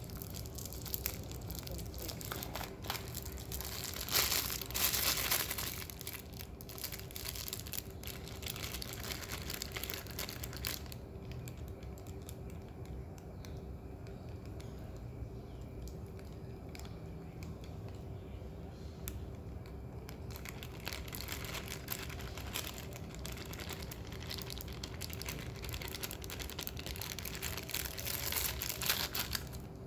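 Thin plastic takeaway bag of curry sauce crinkling and rustling as it is untied and opened by hand, in bouts, quieter for several seconds in the middle. A faint steady hum runs underneath.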